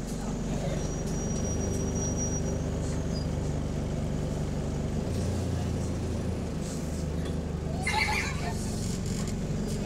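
Interior sound of an Alexander Dennis Enviro200 single-deck bus driving along: a steady engine and drivetrain drone, with a faint high whine about a second in and a short sharper rattle about eight seconds in.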